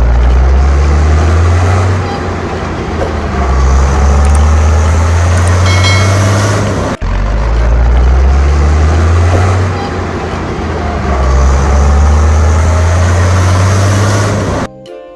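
Loud motor vehicle engine sound, with its low pitch stepping up and down. It cuts off briefly about seven seconds in and then repeats almost exactly, like a looped recording.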